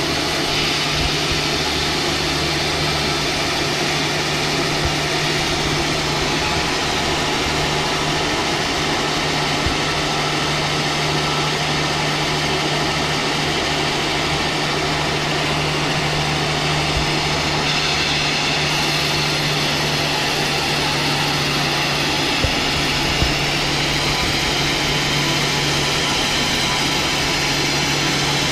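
Sawmill machinery running steadily while sawing logs into boards: a continuous motor drone with a low hum under the saw's noise. The sound turns a little brighter and higher about two-thirds of the way through.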